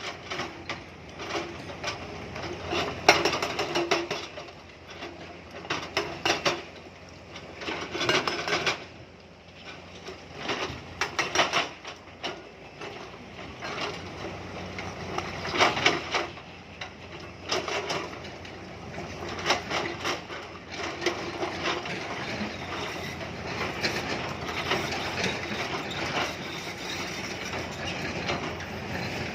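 Hydraulic rock breaker on a Tata Hitachi excavator hammering stone in short bursts of rapid blows every few seconds, with the machine's engine running steadily underneath.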